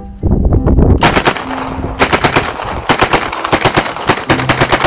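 Electronic machine-gun fire sound effect from a toy electric machine gun: rapid strings of shots starting about a second in, with short breaks between them.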